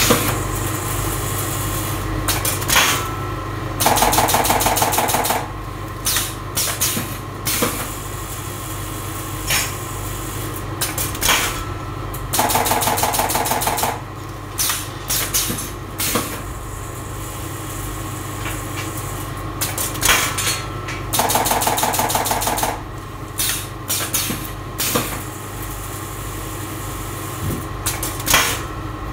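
Automatic bag-packaging machine running: a steady motor hum, with sharp clacks and bursts of air hiss from its pneumatic cylinders. A rapid rattling buzz repeats about every eight and a half seconds and lasts about a second and a half each time.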